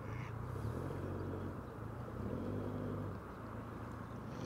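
Boat engine running steadily at low revs, its note shifting slightly as the boat is manoeuvred into a mooring.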